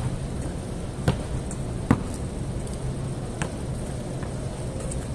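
A basketball bouncing on a concrete court, three sharp, unevenly spaced bounces, over a steady low hum.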